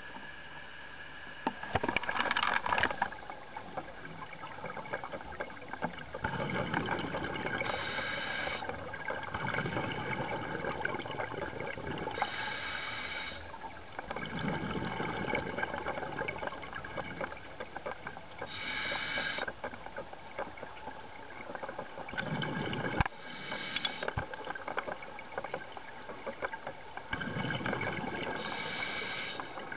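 Scuba breathing underwater through a regulator: bursts of exhaled bubbles and breath noise, about every four to five seconds.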